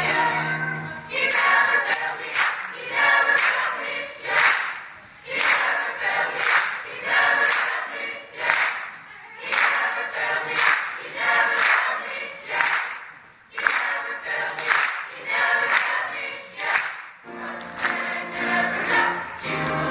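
Mixed chamber choir singing a gospel choral piece, with sharp accents about once a second. Fuller low notes come back near the end.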